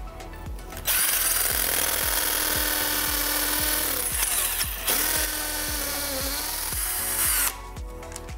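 INGCO CIDLI200215 20V cordless impact drill hammer-drilling into a concrete wall with a 6 mm masonry bit. It starts about a second in, breaks off briefly midway, runs on a little quieter, and stops near the end. Background music with a steady beat plays underneath.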